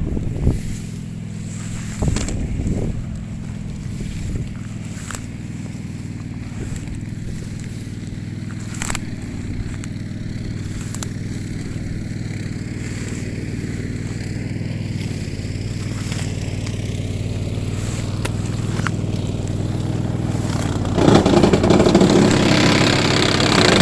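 Engine-driven brush cutter running steadily, getting louder and harsher for the last few seconds as it cuts into grass.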